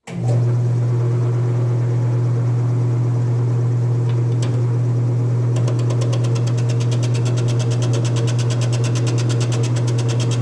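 Grizzly wood lathe running with a steady low hum while a turning tool cuts the spinning spalted maple bowl blank. From about halfway a fast, even chatter joins in.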